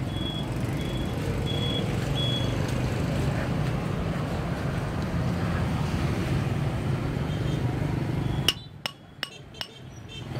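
Roadside market ambience with motorbike traffic running steadily under it, and some clinking. About eight and a half seconds in it drops suddenly to much quieter, with a few sharp clicks.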